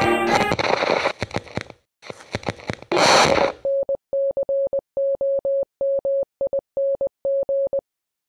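Music ending at the start, then about three seconds of crackling static in broken bursts, then a single steady electronic tone keyed on and off in short and long beeps, Morse-code style, for about four seconds, as a radio 'incoming transmission' sound effect.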